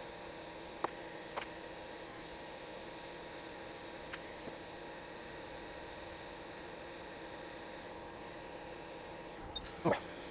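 Steady electrical hum and hiss, with a few faint sharp clicks and one louder click near the end.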